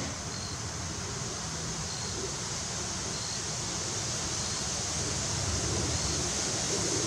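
Steady outdoor wind and ambient hiss on a camera microphone, with faint short high peeps every second or two.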